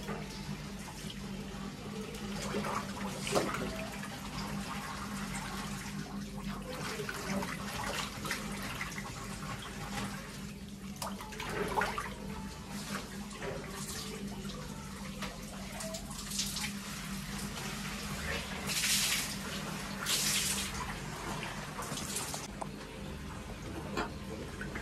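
Water running from a tap into a sink, a steady rush with a few brief louder bursts near the end, over a constant low hum.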